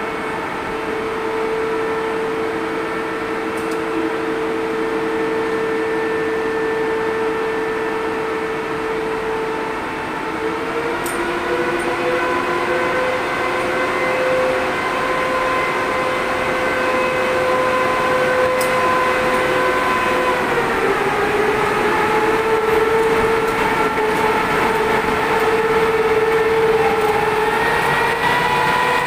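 EP2K electric locomotive starting off and moving slowly, its equipment giving a steady whine of several tones that shifts pitch a few times as it gets under way.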